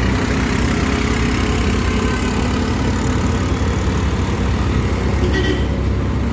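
A motor vehicle's engine running steadily amid road-traffic noise.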